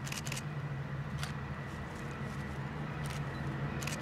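Budd RDC railcar under way: a steady low engine and wheel drone with a few sharp, irregular clicks and rattles.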